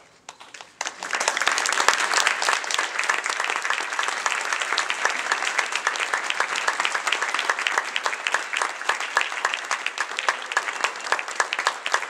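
Audience applauding at the end of an orchestral piece: the clapping breaks out about a second in and then holds steady.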